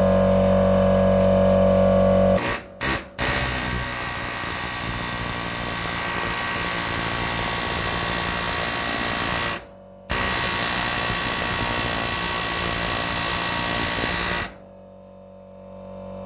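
Eastwood Screw Buster running against a rusted-in hinge screw, a loud rattling tool noise that stops briefly about three seconds in and again about ten seconds in, and cuts off near the end. A steady hum comes before the tool starts.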